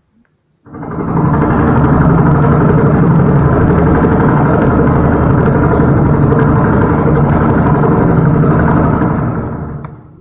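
Vehicle engine sound effect running steadily; it fades in just under a second in and fades out near the end.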